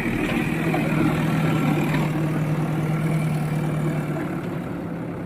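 Diesel engine of heavy machinery running steadily with an even hum, easing slightly about four seconds in.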